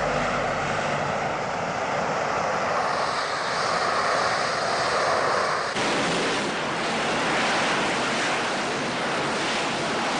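Harrier jump jet's Rolls-Royce Pegasus turbofan running at high power in a hover: a steady, loud rushing jet blast from its four swivelling nozzles. The sound shifts abruptly about six seconds in.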